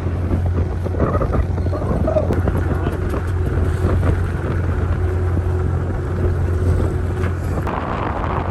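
Wind buffeting the microphone aboard a sailing boat under way, with a steady low rumble throughout.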